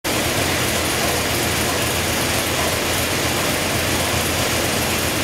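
383 cubic-inch LT1 small-block V8 running on an engine dyno at a steady speed: a loud, even, rough exhaust note through open long-tube headers.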